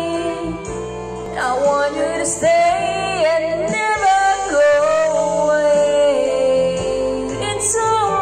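A voice singing a love ballad over a karaoke backing track played on a laptop, holding long notes with vibrato.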